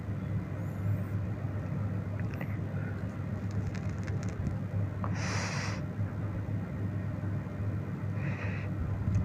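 Steady low background hum and room noise during a pause in the narration, with a few faint clicks between about three and four and a half seconds in and a short breathy hiss about five seconds in.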